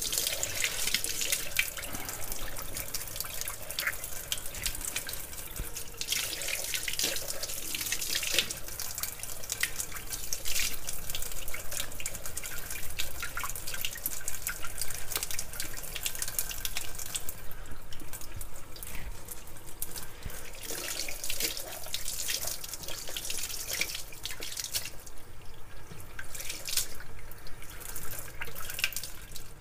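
Kitchen tap running steadily into a sink, water splashing with many small irregular splashes and drips.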